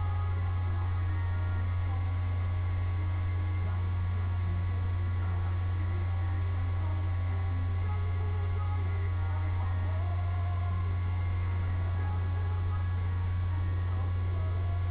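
A steady low hum at an even level, with a few faint, steady high-pitched tones above it.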